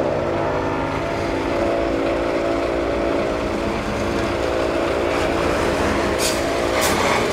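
Engine of road-patching machinery running. Its pitch drops just as it begins and then holds steady, with two short hissing bursts near the end.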